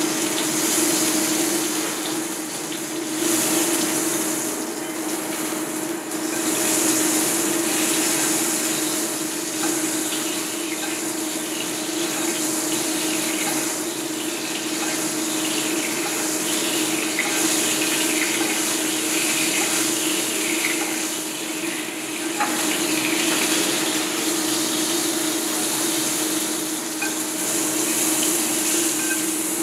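Duck breast sizzling in hot fat in a stainless steel frying pan while a spoon bastes it, the sizzle swelling and easing every few seconds. A steady low hum runs underneath.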